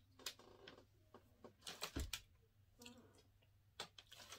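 Faint handling clicks and knocks as a glass hot sauce bottle is shaken over food and set down on a table, the loudest a low thump about two seconds in, then a fork clinking in a glass serving dish near the end.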